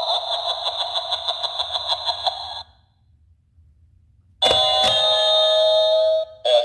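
Jack-o'-lantern Halloween door knocker toy playing electronic doorbell sound effects through its small speaker. A fast-pulsing ring sounds for about two and a half seconds and stops. After a pause, a click at about four and a half seconds is followed by a steady electronic chime that breaks off briefly near the end and starts again.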